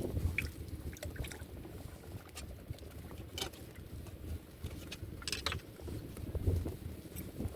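Low rumble of wind on the microphone, with scattered short clicks and taps.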